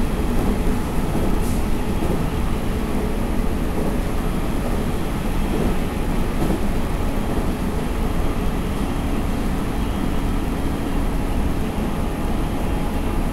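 JR Central 313 series 2600 electric multiple unit running between stations: a steady rumble of wheels on rail with faint steady humming tones.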